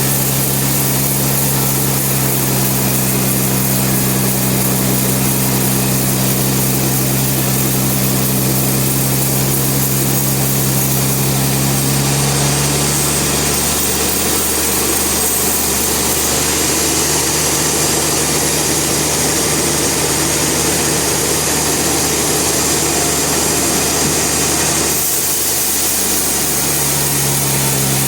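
Band sawmill running with a steady engine hum and the hiss of the saw. About halfway through the engine note gives way to a rougher noise, and it comes back near the end.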